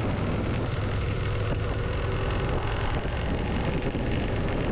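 Suzuki SV650 V-twin engine running steadily under way, mixed with wind rush, picked up by a helmet intercom microphone at town speed, about 40–50 km/h.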